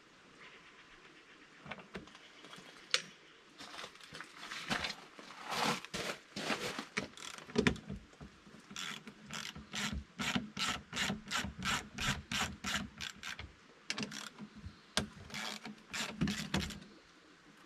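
Ratchet wrench clicking in repeated strokes, settling into about two strokes a second in the middle, as the bolts holding an access panel are loosened.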